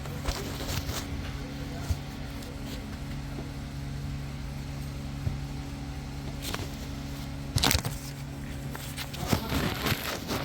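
Scattered clicks and plastic clatter of a screwdriver and hands working a sensor plug's clip in an engine bay, loudest a little before the eighth second and again near the end, over a steady low hum.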